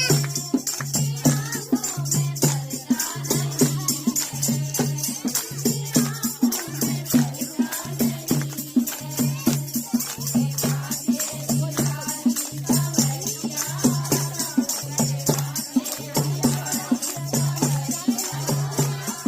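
Hindu devotional bhajan music: a steady beat with jingling, rattling hand percussion and singing voices.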